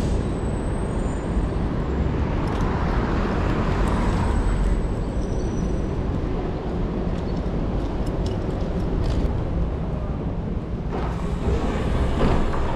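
Street traffic, a steady low rumble with passing cars, heard from a bicycle moving through city streets.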